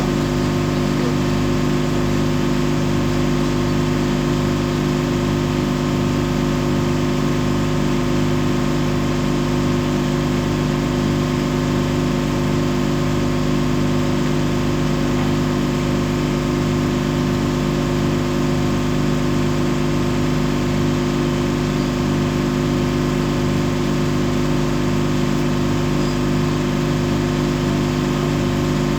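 Ship's machinery running steadily, a constant engine hum with a low tone that pulses about one and a half times a second.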